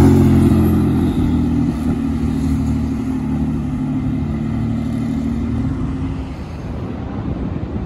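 Porsche 911 Turbo (996) twin-turbo flat-six driving past close and pulling away, its engine note loudest as it passes and fading over about six seconds.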